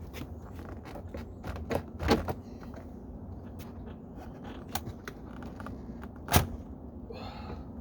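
Plastic door trim panel being pried and tugged at, giving scattered clicks and creaks, with a sharp knock about two seconds in and a louder one just after six seconds. A short rustle follows near the end.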